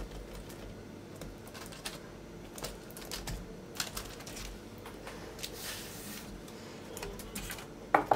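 Fingertips pressing and pinching soft, egg-glazed pide dough to mark its grooves: faint, irregular small clicks and taps.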